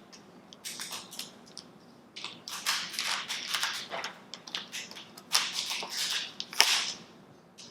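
Plastic packaging rustling and crinkling as it is handled, in irregular bursts with a few sharp crackles, loudest near the end.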